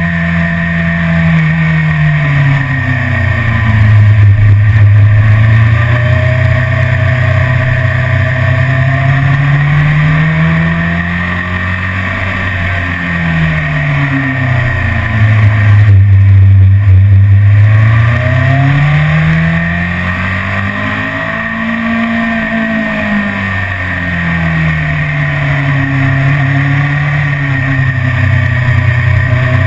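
BMW S1000RR inline-four engine heard from on board at track speed. Its note sweeps down and back up several times as the bike brakes and accelerates through the corners, over a steady rush of noise.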